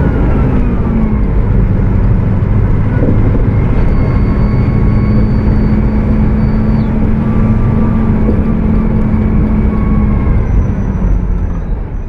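Mercedes-Benz OF 1722M bus engine running steadily at high revs, together with a very loud radiator cooling fan. Partway through, a thin high whine holds for a few seconds.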